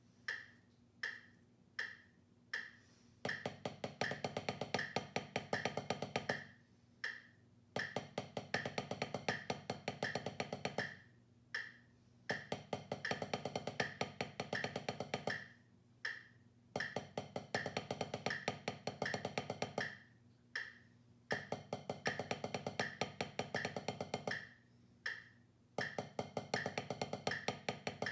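Wooden drumsticks playing rapid sticking exercises on a drum practice pad, in runs of about three seconds separated by short breaks, over a metronome clicking steadily at 80 beats a minute. The first few seconds hold four metronome clicks alone before the sticks come in.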